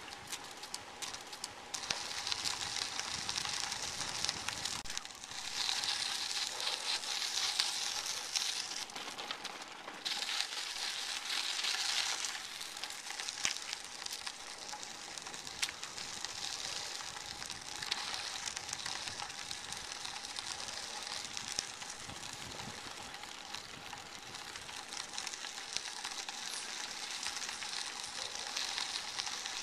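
Bicycle tyres rolling over a crushed-stone trail: a steady gritty crackle and hiss that swells and fades, with a few sharp ticks from loose stones.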